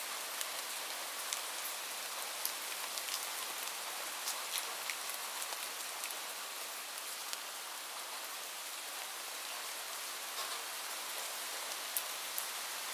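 Light rain falling steadily, a constant hiss dotted with separate sharp drop ticks.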